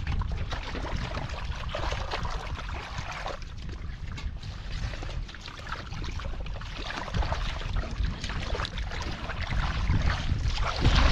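Hands splashing and squelching through shallow muddy water, in an irregular run of wet slaps and sloshes. A steady low wind rumble on the microphone runs under it.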